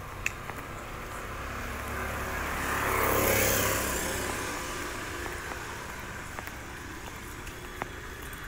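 Motor scooter passing close by: its engine noise swells to a peak about three seconds in, then fades away.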